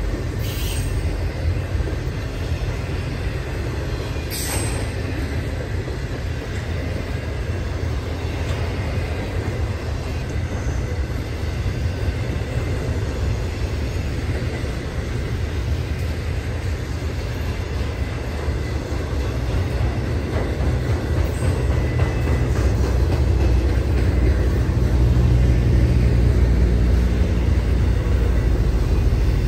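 Intermodal freight train of cars carrying truck trailers and containers rolling slowly past: a steady low rumble of wheels on rail that grows louder near the end, with two brief sharp high sounds in the first five seconds.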